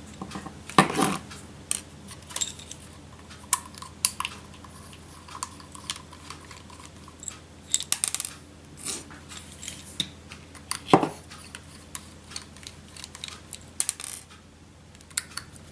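Screwdriver work on the four small screws holding a laptop hard drive in its casing: scattered light metal clicks and taps as the screws are backed out and handled, with a few sharper knocks, the loudest about eleven seconds in. A steady low hum runs underneath.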